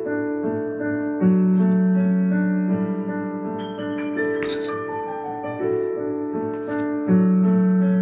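Background piano music, a slow melody with held notes.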